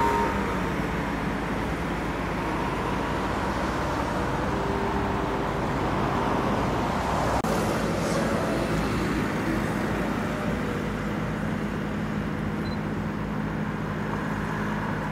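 Steady engine hum under a rushing noise, like motor traffic, broken by a brief dropout about seven seconds in.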